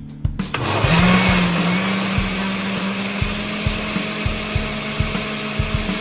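Countertop blender switching on about half a second in and running steadily at full speed, blending boiled cashews and almond milk into a sauce.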